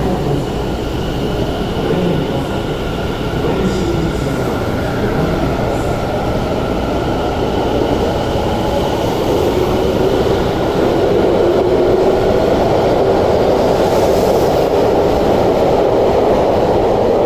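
Tobu 50050 series electric commuter train pulling out of an underground station platform and picking up speed: a steady motor whine over the rumble of the wheels, which grows louder about two-thirds of the way through.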